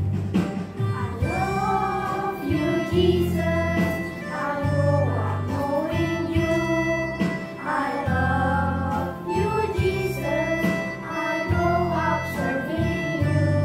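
Children's choir singing a praise song over an instrumental accompaniment with a steady bass line.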